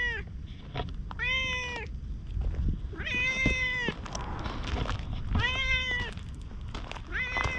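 Orange tabby cat meowing repeatedly as it walks along after a person: four long meows, one every couple of seconds, each holding a steady pitch and dropping slightly at the end, with the tail of a fifth at the very start.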